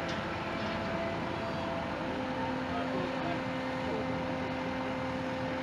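Heavy construction machinery running steadily, the engines of the crane and excavator lifting the footbridge span, with a faint steady whine joining in about two seconds in.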